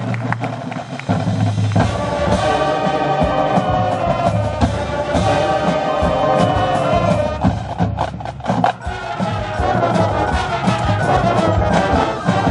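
High school marching band playing: the brass section holds loud sustained chords over bass drums and drumline percussion, with a short passage of drum hits about two-thirds of the way through before the brass comes back in.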